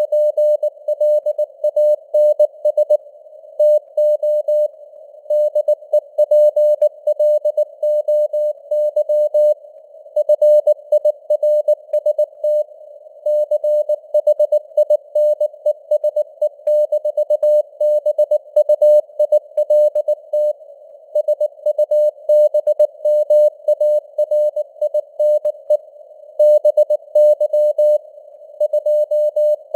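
Morse code at 19 words per minute: a single tone of about 600 Hz keyed on and off in dots and dashes, over a narrow band of simulated radio hiss around the tone. The signal fades up and down in strength (QSB), weaker around the middle and stronger again near the end.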